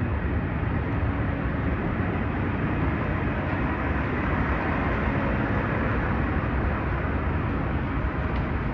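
Steady city street noise of traffic: a continuous low rumble with hiss above it and no distinct events.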